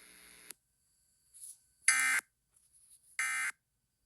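Emergency Alert System end-of-message (EOM) data tones: two short, identical buzzing bursts of SAME digital code, about a second and a third apart. These bursts signal that the alert message is over.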